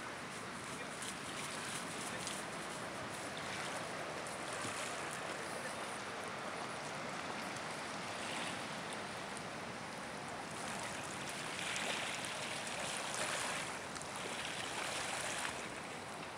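Gentle water lapping and washing on a pebble shore, a steady wash that grows a little louder for a few seconds after the middle.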